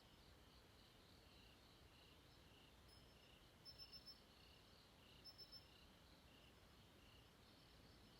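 Faint night chorus of crickets chirping in a steady, regular pulse, with two short runs of louder, higher chirps in the middle: four quick chirps, then three.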